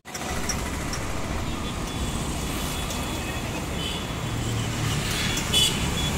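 Street traffic: a steady hum of passing motor vehicles, with a low engine drone about four seconds in and a few brief sharp sounds soon after.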